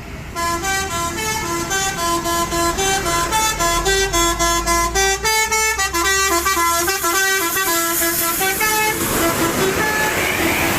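Bus telolet horn, a multi-tone air horn, playing a fast stepped melody of several notes a second for about eight and a half seconds. A broad rush of noise follows near the end.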